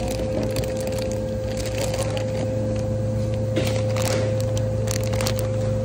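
Supermarket background hum: a steady low drone with a constant higher tone, and scattered clicks and rustles of things being handled, thickest about three and a half seconds in and again near the end.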